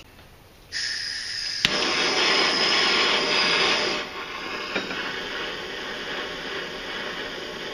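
Handheld gas torch being lit and run: gas starts hissing suddenly about a second in, a single sharp igniter click follows, then the flame burns with a loud steady hiss that drops to a lower level about four seconds in. It is heating a cable terminal to melt solder into it.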